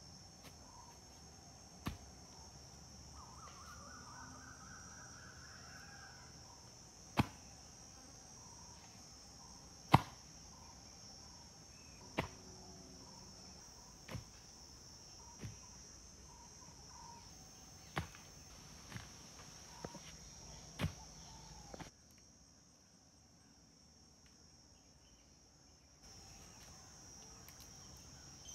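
Wooden poles knocking as they are handled and set upright, about a dozen sharp, irregularly spaced knocks, over a steady high drone of forest insects. A short bird trill sounds a few seconds in.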